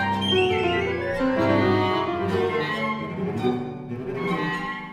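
Live contemporary chamber music from a Pierrot ensemble of flute, clarinet, violin, cello and piano, with bowed violin and cello to the fore in dense overlapping held notes. The texture thins and dies away near the end.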